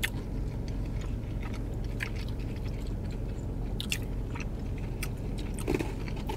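Two people chewing bites of a spicy grilled chicken sandwich on a soft multigrain bun, with small wet mouth clicks here and there, over a steady low hum inside a car cabin.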